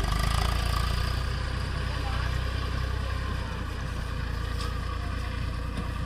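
Eicher 480 tractor's three-cylinder Simpson diesel engine running steadily while it drives a Redlands round straw baler through paddy straw.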